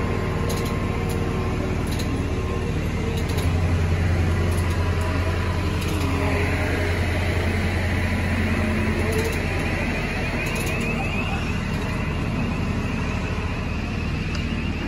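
Diesel engine of heavy construction machinery running steadily with a deep hum, swelling louder for a few seconds about four seconds in, with faint clicks now and then.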